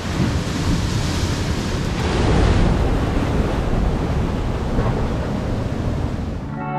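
Surf breaking and washing up into a small rocky cove, with wind buffeting the microphone. The rush swells a little louder a couple of seconds in.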